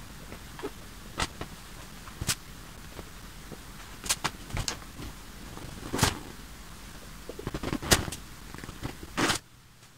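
Marker pen drawing on an inflated clear plastic bubble balloon: scattered short scratches and taps from the pen and hands on the balloon's skin, over a steady hiss that cuts off suddenly near the end.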